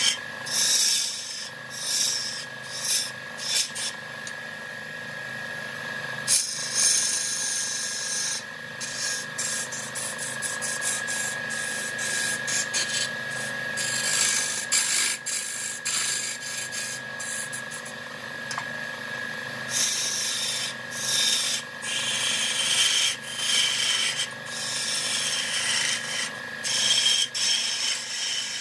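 Wood lathe turning a wooden workpiece while a tool scrapes the spinning wood in repeated passes, some brief and some lasting a couple of seconds, over a steady high whine.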